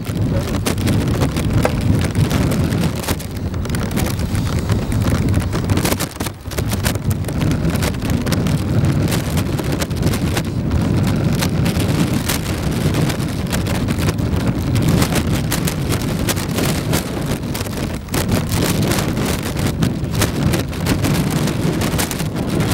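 Wind buffeting the microphone: a loud, low rumble that rises and falls unevenly with the gusts, with a brief lull about six seconds in.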